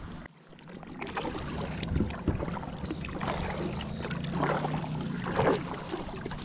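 Kayak paddle strokes: the blades dipping and pulling through calm lake water, with splashy swishes and drips about a second apart over a low steady hum.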